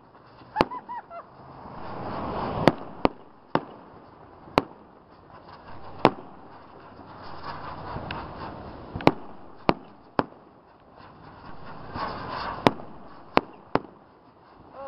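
Aerial fireworks shells bursting overhead: about a dozen sharp bangs at irregular gaps of half a second to two seconds, with a hiss that swells and fades between them.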